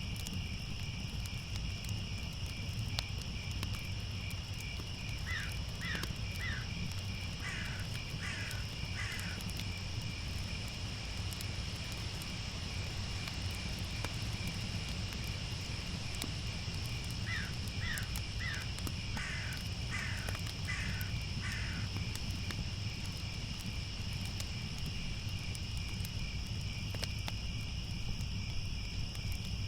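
Night insects, crickets, chirping in a steady high chorus. Twice, a crow calls a run of about six caws.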